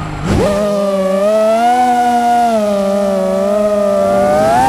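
FPV freestyle quadcopter's brushless motors spooling up about half a second in, then holding a steady, loud whine under throttle that wavers slightly in pitch and rises a little near the end.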